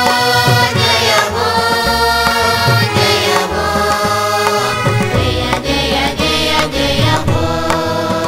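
Carnatic vocal music: a singer holding and bending long notes, with frequent hand-drum strokes and a steady drone underneath.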